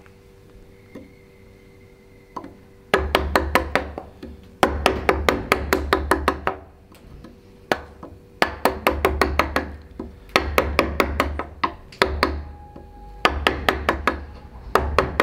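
A wooden carver's mallet striking a carving gouge into gnarled wood. The blows come in quick runs of about four or five a second, with short pauses between runs, starting about three seconds in.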